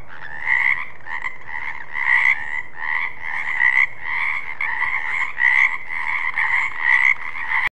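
Frog croaking over and over, about two to three croaks a second, then cutting off suddenly near the end.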